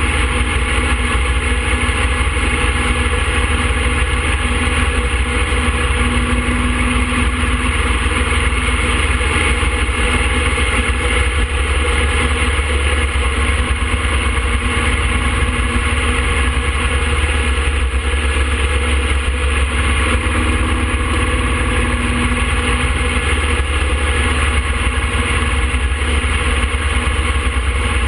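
2007 Harley-Davidson Fat Boy's Twin Cam 96 V-twin engine running at a steady cruise while riding, heard from a handlebar-mounted camera.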